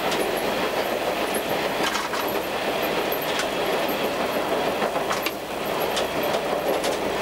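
Diesel railcar running along the track, heard from inside the driver's cab: a steady rumble of engine and wheels, with sharp wheel clicks at irregular intervals.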